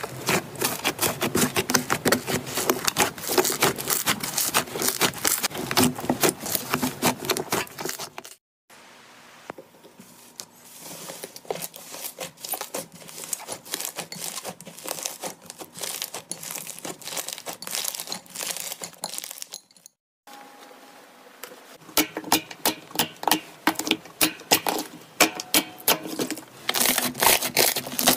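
Slime being pressed and kneaded by hand, crackling and popping in quick clicks. In the first part the slime is covered by a torn paper layer, which crinkles as it is pressed. The sound cuts out briefly twice, about 8 and 20 seconds in, and the later clicking is quieter at first before growing louder near the end.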